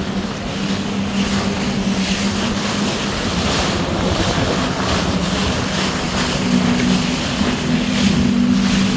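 Jet ski engine running steadily under way, with a steady drone, over rushing water and wind buffeting the microphone.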